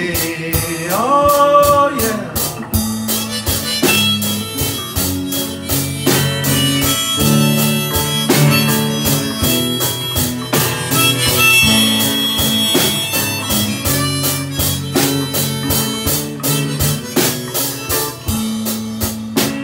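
Instrumental break: a harmonica plays held, wavering melody notes over strummed acoustic guitar and a drum kit keeping a steady beat.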